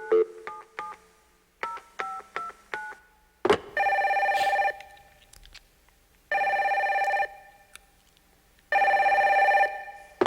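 A touch-tone phone being dialed: a quick string of short key beeps, a click, then the phone ringing three times in short warbling bursts.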